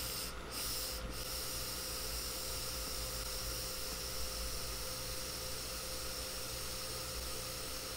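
Long, slow drag on a vape pen: a steady soft hiss of breath drawn through the cartridge, over a faint constant hum.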